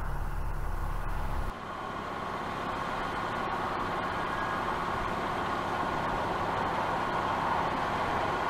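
A low engine rumble from the boat cuts off abruptly about a second and a half in. It gives way to a steady rush of road traffic on a nearby main road, many vehicles rushing by.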